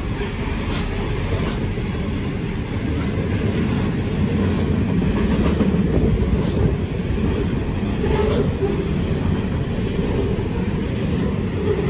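Sydney Trains electric train running on the rails: a steady low rumble with faint, irregular clicks, growing a little louder about four seconds in.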